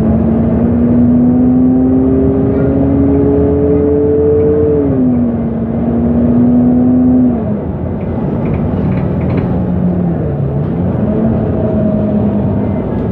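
MAN NG273 T4 articulated bus's LPG engine pulling under load, its pitch climbing slowly, then stepping down about five seconds in as the gearbox shifts up. About seven seconds in the engine comes off load and drops to a lower, quieter drone that dips once and picks up again.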